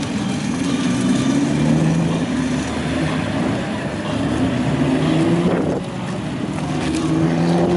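Classic Nissan Laurel hardtop's engine running as the car rolls slowly past, the revs rising in a few short pulls and falling back about five and a half seconds in.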